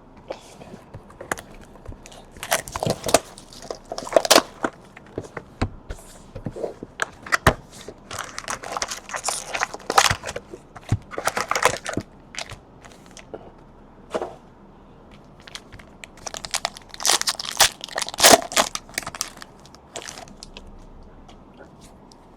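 Trading card packaging being torn open and crinkled by hand, the foil wrappers and box of 2019 Panini Chronicles Baseball packs, with sharp crackles and rustles coming in three spells: a few seconds in, in the middle and near the end.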